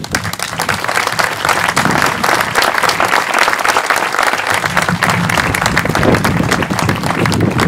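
Audience applauding: dense, steady clapping that starts at once and holds throughout.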